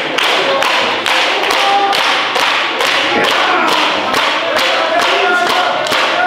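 Wrestling crowd clapping in rhythm, about three claps a second, with a voice calling out near the end.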